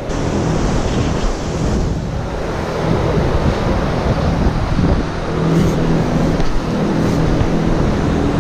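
Steady, loud rushing noise with a low hum running through it, the kind made by running machinery or wind.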